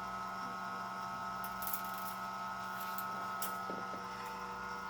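Steady machine hum made of several constant tones, with a few faint clicks.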